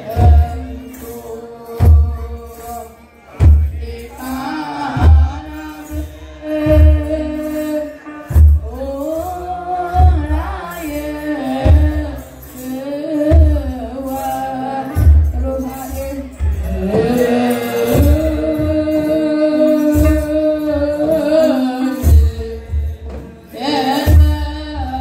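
Group of deacons chanting wereb, Eritrean Orthodox Tewahedo liturgical chant, in unison with held notes, over a deep beat that comes about every one and a half to two seconds with a jingling rattle on each beat.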